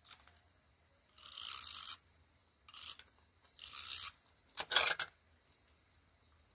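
Paper rustling and rubbing as a strip of printed paper is handled and pressed down onto a journal page: five short scratchy strokes, the last one the loudest with sharp crackles.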